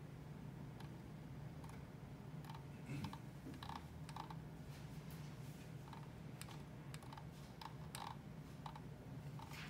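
Typing on a computer keyboard: faint, irregular key clicks, some in quick pairs, over a steady low hum.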